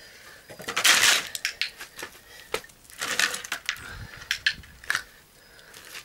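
Crunching and scraping from a puppy nosing and stepping around a cardboard box lid on concrete, with two louder crunchy bursts about a second in and about three seconds in, and scattered sharp clicks.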